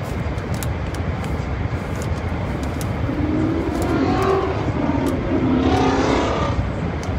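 Low road rumble inside a moving car's cabin; from about three seconds in, a nearby car's loud customized exhaust drones for a few seconds over it, then fades.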